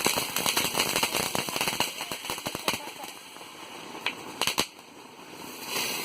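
Firecrackers going off in a rapid crackle that thins out after about two seconds, followed by a few last separate pops near the end.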